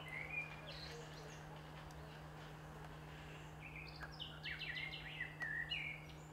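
Small birds chirping: scattered short high chirps, with a quick run of them about four to six seconds in, over a steady low hum.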